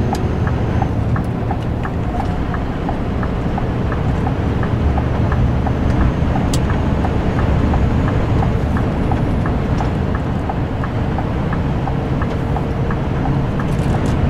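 Scania R560's V8 diesel pulling under power in fifth high, heard from inside the cab as a steady, deep engine sound. A light, regular ticking runs over it about two or three times a second.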